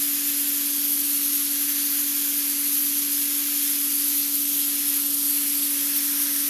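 Pressure washer spraying: a steady hiss of the water jet, with a steady hum underneath.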